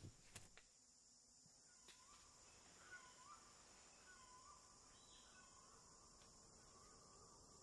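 Faint forest ambience: a steady high insect hiss with a few soft bird chirps in the middle, and a couple of faint clicks at the start.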